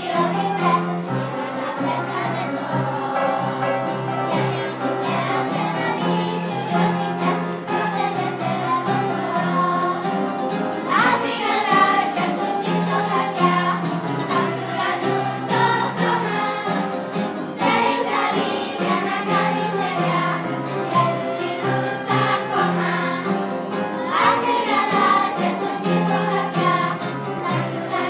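Children's choir singing a Greek song together in Greek, with sustained accompaniment chords underneath.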